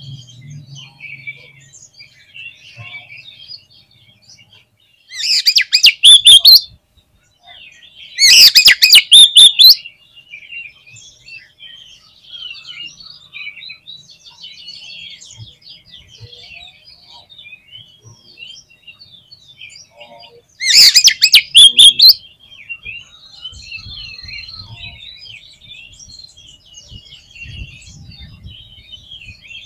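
Oriental magpie-robin (kacer) song: a continuous run of varied chirps and whistles, broken three times by very loud one-to-two-second bursts of rapid, harsh notes.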